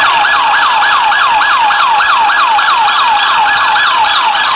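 Toy police jeep's electronic siren: a quick falling wail that switches on abruptly and repeats about four times a second, over a steady hiss.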